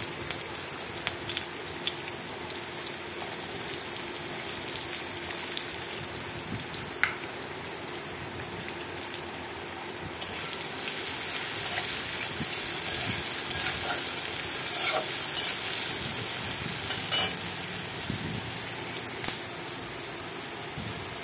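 Chopped onions sizzling in hot oil in a kadai, a steady frying hiss, with a few light scrapes and ticks of a spatula stirring them.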